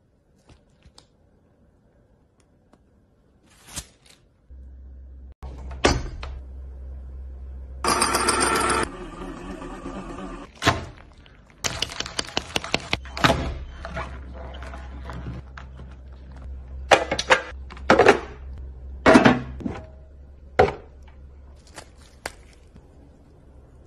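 Close-up handling of lobster and other food with tongs and gloved hands: a string of sharp clicks, knocks and cracks over a low steady hum that starts about four and a half seconds in. A short harsh burst of noise comes about eight seconds in.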